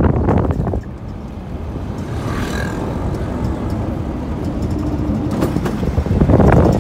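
Auto-rickshaw running over a dirt road, with engine and road noise. It is louder in the first second and again near the end.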